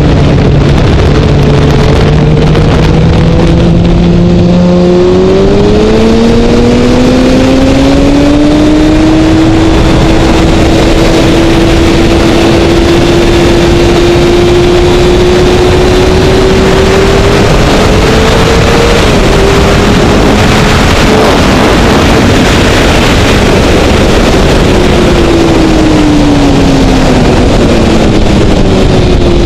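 A 2012 Kawasaki ZX-6R's inline-four engine at speed on track under a heavy rush of wind on the microphone. The engine note climbs for several seconds as the bike drives out of a corner, then holds steady, with a brief drop near the middle like an upshift. It falls as the rider rolls off and rises again near the end.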